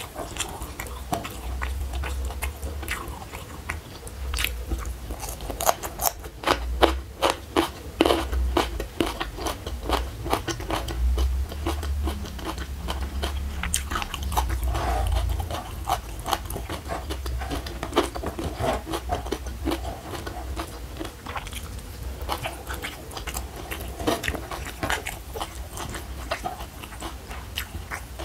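Close-miked chewing of raw, crisp green vegetable stalks: repeated crunchy bites and wet mastication.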